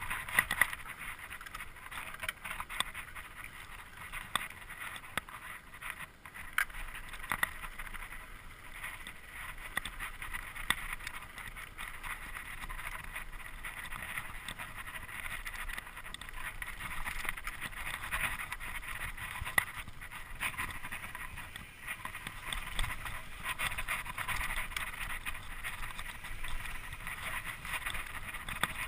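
Mountain bike ridden over a dirt singletrack trail, heard onboard: a steady rush of tyre and trail noise with frequent sharp clicks and rattles as the bike hits bumps.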